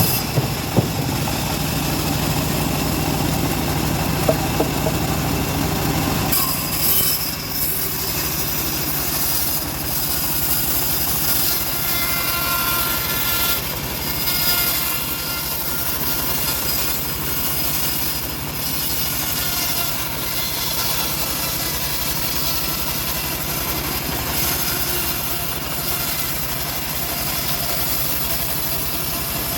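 Band sawmill running and sawing through a log, a steady mechanical drone. About six seconds in, the low hum drops away and a higher hiss with faint whining tones takes over.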